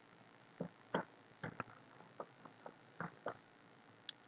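Faint, scattered clicks of a computer keyboard and mouse: about ten light taps at uneven intervals.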